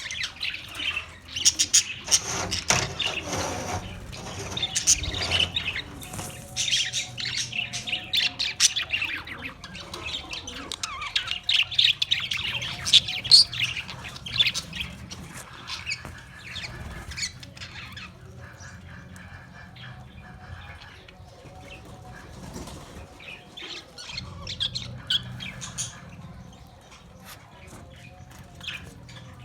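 A group of Australian parrots chirping and squawking: many short, high-pitched calls overlapping in quick succession, busiest in the first half and sparser later on.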